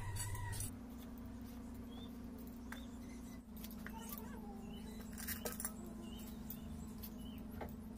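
Light clicks and clinks of a large hand-held knife cutting vegetables, faint over a steady low hum.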